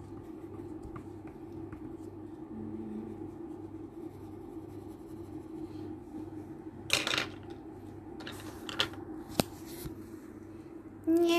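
Coloured pencils being handled on a table over a steady low hum: two short, light clatters and a sharp click in the second half. A voice starts humming right at the end.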